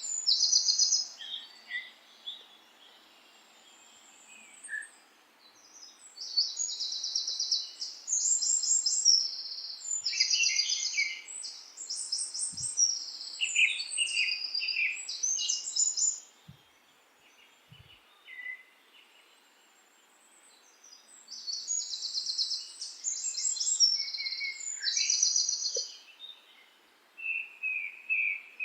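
Songbirds singing in bouts of rapid, high-pitched trilled phrases, with pauses between the bouts over a faint steady background hiss.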